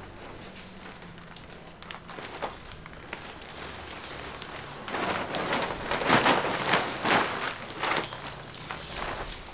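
Plastic silage bag crinkling and rustling as it is handled, faint scattered crackles at first, then loud irregular swells of crinkling from about five seconds in.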